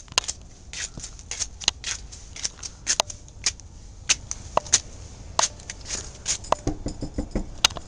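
Footsteps scuffing on a gritty concrete path, with crisp irregular scrapes several times a second and a few duller thuds near the end.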